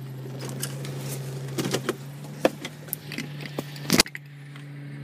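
Light clicks, knocks and rustling from handling while getting out of a parked car, over a low steady hum, with a sharp knock about four seconds in.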